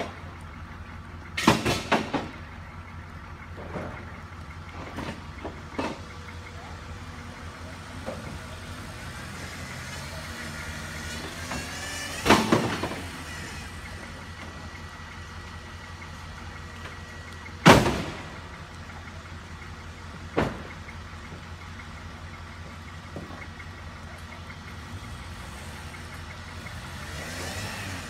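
Off-road Jeep's engine running under load as it crawls out of a muddy hole, rising in pitch as it revs, with a few short, sudden loud noises along the way.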